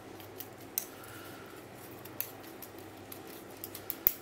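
A spoon tapping against a small metal sieve to sift powdered sugar: a few sparse, light metallic clicks, the loudest near the end.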